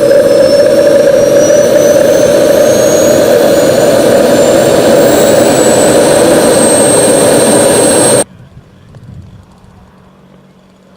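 Model jet's turbine engine running very loud, its high whine rising steadily in pitch. The sound cuts off suddenly about eight seconds in, leaving only faint background.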